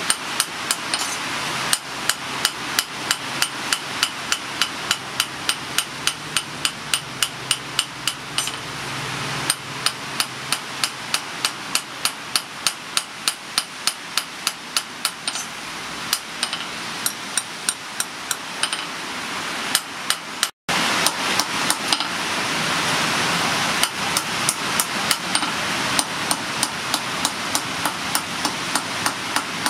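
Hand hammer forging a red-hot steel strip cut from a motorcycle brake disc on a steel anvil: about three ringing blows a second, with a short break partway through, over a steady hiss.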